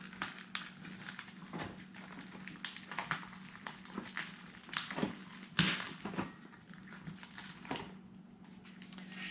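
Rustling and crinkling of packaging with scattered sharp clicks of small parts being handled, over a faint steady hum.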